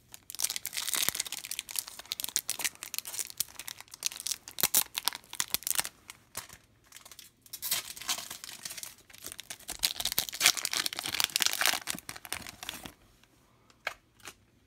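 Foil wrapper of a 2016 Donruss Optic football card pack being torn open and crinkled, in two long stretches with a short lull about six seconds in, stopping about thirteen seconds in.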